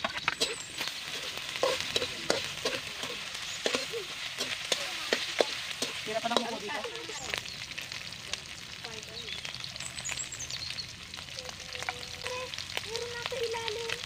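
Chopped boiled chicken liver frying and sizzling with onion and garlic in a metal wok. A metal spatula scrapes and taps against the pan as it is stirred, in many short clicks.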